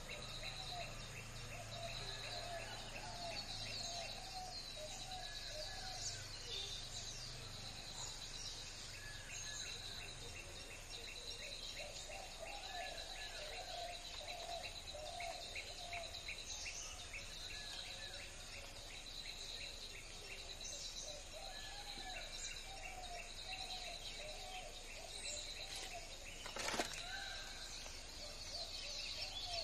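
Several wild birds calling and chirping over a steady, high-pitched pulsing buzz. There is a single sharp knock near the end.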